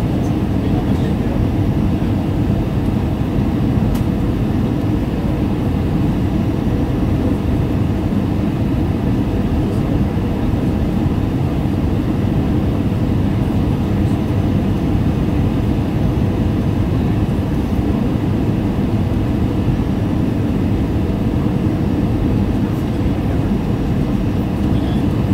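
Steady cabin noise of a passenger airplane on its landing approach: an even, low rumble of engines and rushing air heard from inside the cabin.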